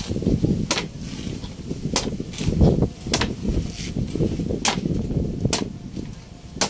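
Heavy cleaver chopping into the husk of a young green coconut on a wooden board: sharp strikes about once a second.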